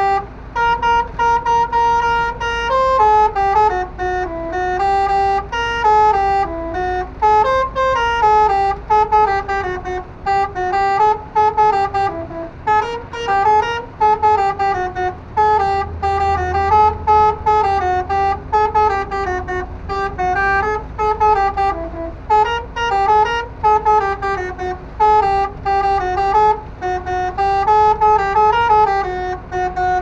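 Six-trumpet telolet air-horn module on a truck playing a melody, quick notes stepping up and down without a break, two tones sounding together.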